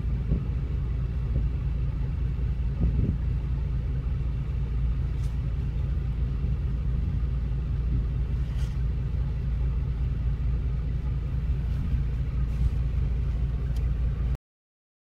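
Steady low rumble of an idling vehicle engine, holding an even level and cutting off abruptly near the end.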